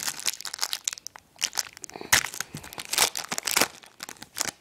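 Foil trading-card pack wrapper being torn open and crinkled, in irregular crackly rustles with short pauses, fading out near the end.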